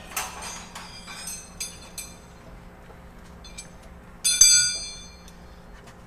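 Hammer blows on metal brake parts: a few light, ringing clinks in the first two seconds, then one hard strike about four seconds in that rings on for about half a second.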